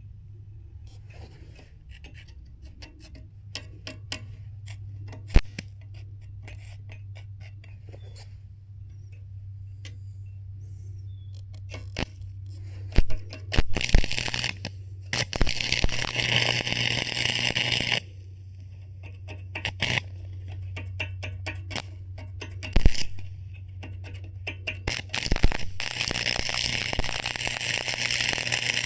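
Stick welder arc crackling and sizzling as beads are run to fill a gap in steel plate, in two runs of several seconds, about halfway through and again near the end. A steady low hum underneath, with scattered ticks and taps between the runs.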